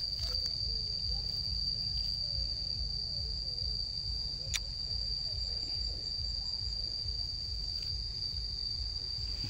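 An insect trilling steadily on one high pitch without a break, over a low rumble. A single sharp click comes about four and a half seconds in.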